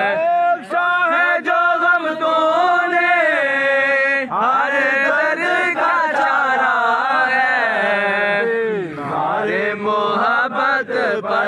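Male voices singing a devotional Urdu song in long, drawn-out melodic lines, with a few brief sharp clicks.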